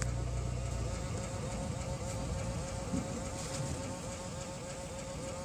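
Car interior noise while driving slowly: a low engine and road rumble, heavier in the first second, under a steady buzzing hum.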